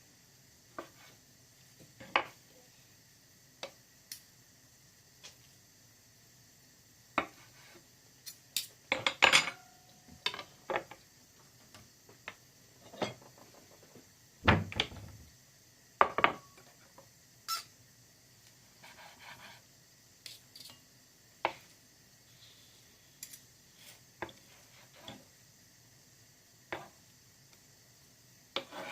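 Kitchen utensils, pots and dishes being handled: irregular clinks and knocks, some ringing briefly like metal, with a busier clatter a third of the way in and one heavy thump near the middle.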